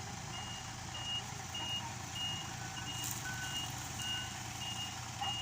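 Reversing alarm on heavy construction machinery beeping steadily, about one and a half beeps a second, over a running engine. A second, lower-pitched reversing alarm sounds three times in the middle.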